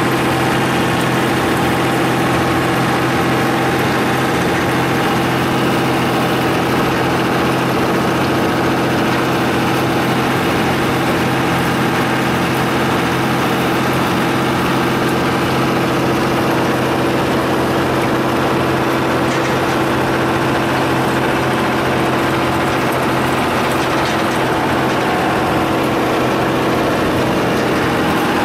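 Unimog engine running at a steady speed as the truck drives across a mown meadow, heard from the cab: a constant, loud engine note with no change in pitch.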